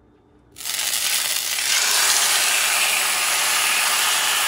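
Marinated flank steak laid into hot olive oil in a preheated cast-iron skillet: a loud sizzle starts suddenly about half a second in and carries on steadily as the meat is pressed down.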